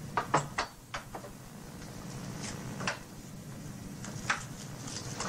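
Sharp clicks and knocks of breakfast tableware and room fittings being handled. A quick cluster comes in the first second, then single knocks about three and four seconds in.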